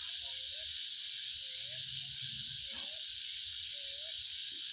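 Steady high-pitched droning hiss in the background, with a few faint short chirps scattered through it.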